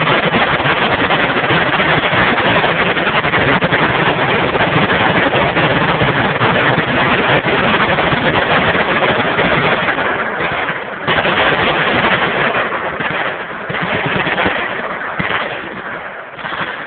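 Massed automatic gunfire from many machine guns firing at once, blending into a continuous loud clatter that overloads the phone microphone. After about ten seconds it thins, with a few brief lulls.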